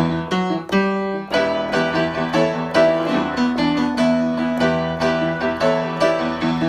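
Piano music: a run of struck notes and chords, several notes a second.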